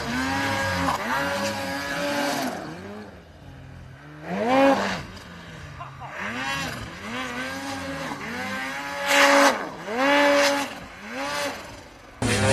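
Snowmobile engine revved in repeated bursts, its pitch rising and falling with each blip of the throttle as the sled churns through deep powder. A quieter lull comes about three seconds in, and a sudden louder, rougher rush of engine noise starts just before the end.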